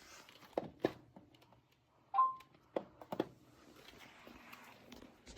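A few scattered knocks and clicks, with a short electronic beep about two seconds in.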